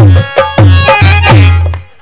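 Folk drums playing a rasiya accompaniment: deep ringing strokes a little over two a second, each sliding down in pitch, with sharper strokes in between. The drumming stops just before the end.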